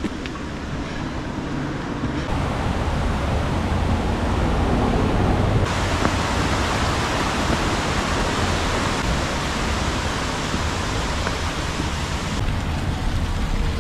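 Steady rushing outdoor noise with a heavy low rumble, which changes character abruptly a few times.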